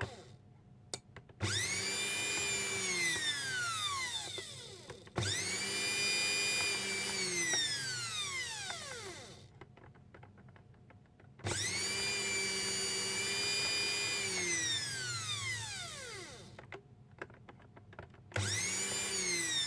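Bosch blender motor switched on four times, each time starting suddenly into a steady high whine, holding for a second or two, then winding down in pitch as the power is cut. The speed selector switch is being tested after a repair of its contacts.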